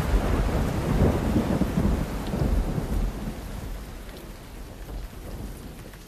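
Thunderstorm: low thunder rumbling over steady rain, dying away over the second half.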